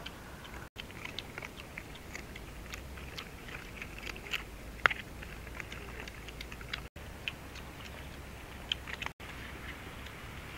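Several dogs chewing and crunching cooked chicken from a shared basket: irregular wet smacks and crunches, with one louder snap about five seconds in.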